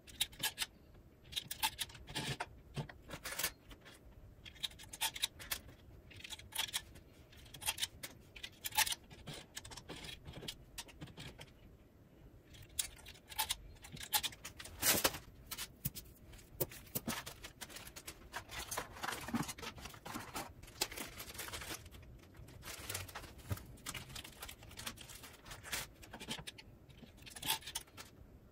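Metal latch needles clicking and scraping as they are slotted one by one into the plastic needle cylinder of a Dean and Bean sock machine, with loose needles clinking as they are picked up. The clicks come irregularly, with a stretch of denser scraping a little past the middle.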